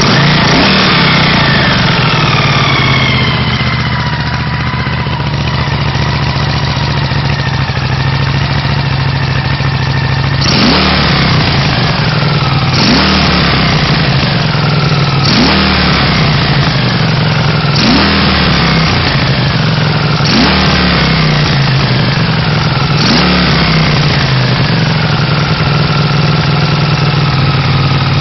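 Honda CX500's liquid-cooled V-twin idling, settling down from a rev at the start. From about ten seconds in, the throttle is blipped six times, about every two and a half seconds, and each time the revs jump sharply and then fall back to idle.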